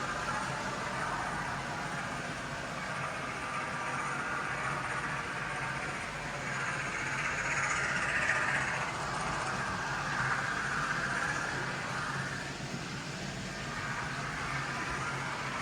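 Hornby OO-gauge 9F model locomotive running round the layout with a long rake of open wagons: a steady hum of its motor and the rattle of many wagon wheels on the track. The sound swells a little about halfway through, then eases.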